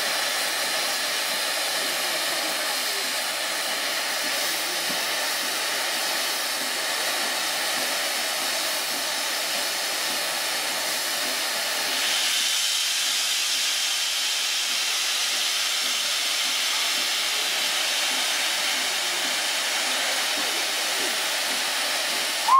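LNER A3 Pacific Flying Scotsman standing with steam hissing steadily from its front end. About halfway through, the hiss turns higher and sharper.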